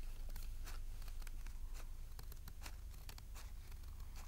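Scissors snipping through thick folded paper while the paper rustles in the hands: a string of small, irregular clicks and crinkles.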